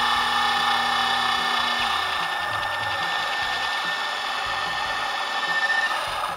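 Electric motor in a Maytronics Dolphin pool robot's motor block running steadily with a whine. A low hum underneath stops about two seconds in.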